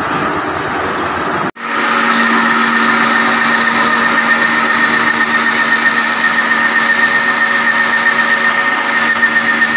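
Metal-turning lathe running steadily, its spindle and chuck spinning a steel shaft, with a steady whine that pulses slightly in loudness. About one and a half seconds in, a brief drop-out breaks a rougher workshop machine noise before the steady lathe sound takes over.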